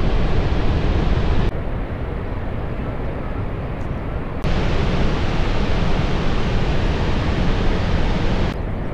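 Steady rushing roar of Niagara Falls' falling water, a dense noise heaviest in the low end. Its level changes abruptly about one and a half seconds in and again about four and a half seconds in.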